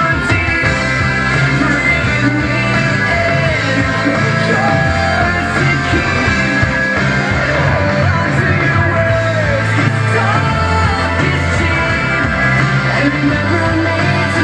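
Loud recorded rock song with a singing voice, played back over a hall's loudspeakers as dance music.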